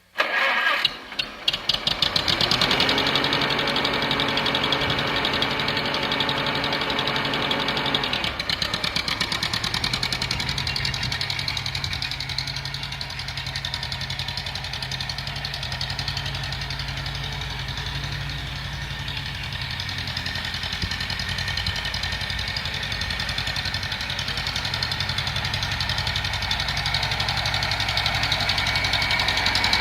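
Truck engine starting: a few ragged strokes as it catches in the first two seconds, then running at a raised idle. About eight seconds in it drops to a lower, steady idle.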